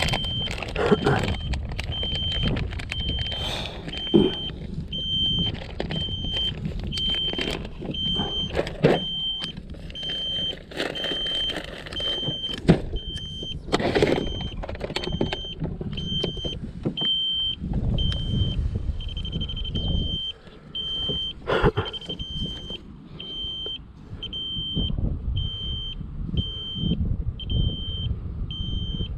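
A short high electronic beep repeating evenly, just over once a second, from a device on the boat. Under it, wind buffets the microphone, and a plastic tackle box clatters and knocks as lures are handled.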